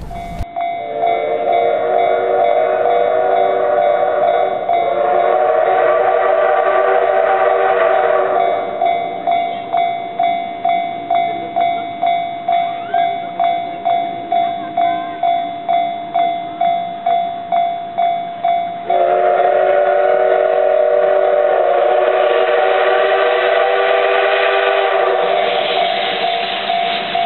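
Level crossing warning bell ringing about twice a second as a steam locomotive approaches, sounding two long steam whistle blasts: one through the first eight seconds and another from about two-thirds of the way in.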